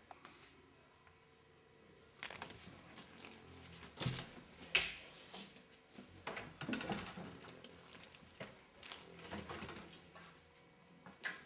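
Irregular rustling and tapping with scattered sharp knocks, starting about two seconds in; the loudest knocks come about four seconds in and just before five.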